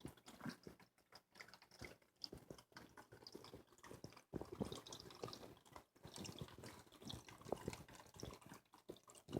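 Small man-made waterfall in a reptile tank, trickling and dripping faintly, growing busier from about four seconds in.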